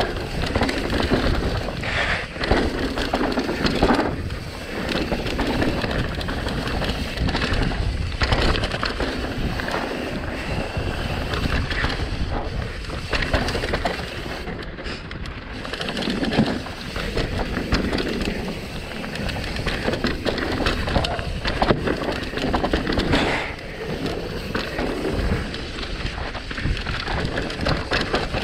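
Mountain bike descending a rough, rocky trail: tyres grinding over dirt and stones, with a steady rattle from the bike and frequent sharp knocks from hits.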